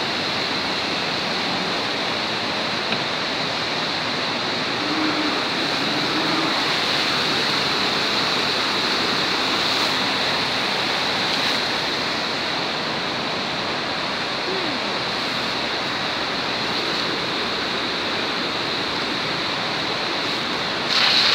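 River rapids: white water rushing over rocks in a dense, steady rush that holds its level throughout.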